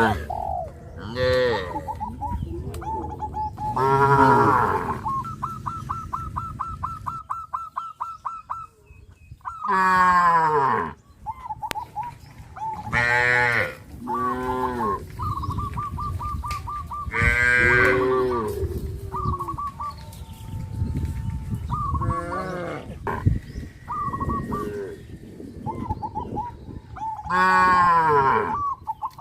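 Cattle mooing again and again: about eight long, loud moos spaced a few seconds apart, some overlapping as different cows call.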